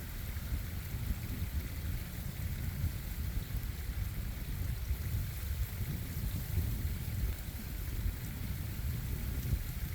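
Running water of a stream and waterfall: a steady rushing with a low, fluttering rumble underneath.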